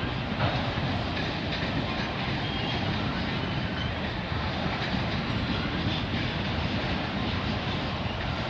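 Freight cars of a CN local freight train rolling past on the rails, a steady rumble of wheels on track.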